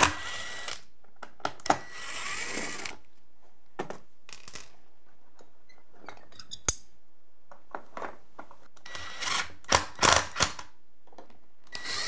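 Power drill running in short bursts on door-hinge screws, three spells a few seconds apart, with scattered sharp clicks of the hinge hardware being handled in between.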